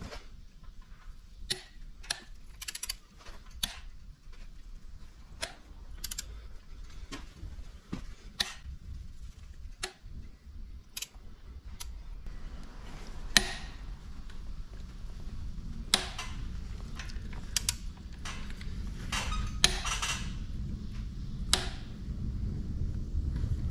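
Ratchet wrench clicking and metal tools knocking in scattered single strokes while the crankshaft pulley bolt is angle-tightened a further 180 degrees, over a low hum that grows toward the end.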